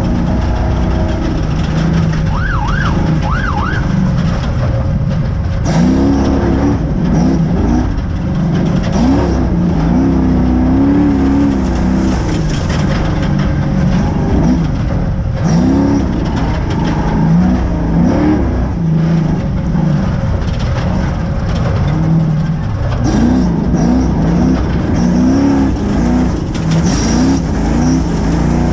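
Spec Trophy Truck's race engine heard from inside the cab, revving up and dropping back again and again as the truck is driven hard over rough desert, with steady road and wind noise and repeated knocks and clatter from the chassis. About two seconds in, a brief warbling siren-like tone sounds over it.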